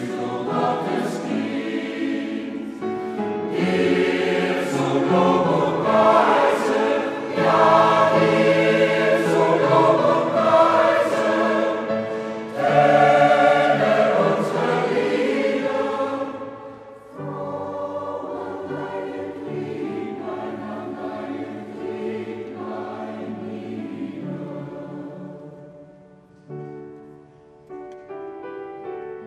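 Mixed choir of men and women singing, loud through the first half, then dropping to a softer passage a little past halfway.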